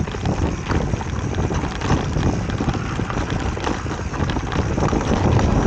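Mountain bike riding over a rough dirt trail, picked up by a handlebar-mounted camera: tyres on dirt and a dense rattle of small knocks, with wind buffeting the microphone.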